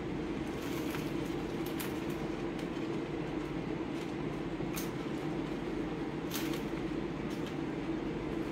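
A steady low rumble, with a few brief crackles as sprigs of fresh epazote are snapped and stripped by hand.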